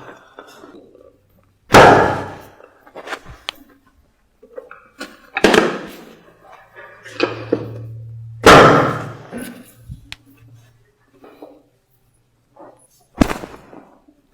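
Chiropractic adjustment: four loud, sharp cracks or thuds a few seconds apart as thrusts are delivered to the patient's body, with smaller knocks between them.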